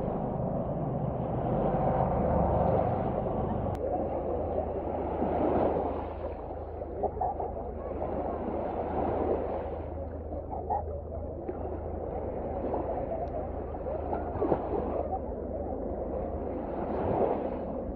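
Eurocopter AS565 Panther helicopters flying past at a distance: a steady low drone of rotor and turbine over a rushing background noise.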